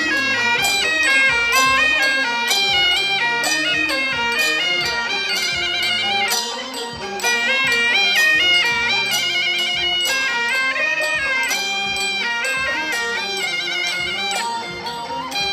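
Background music: a wind-instrument melody moving in stepped notes over a regular beat.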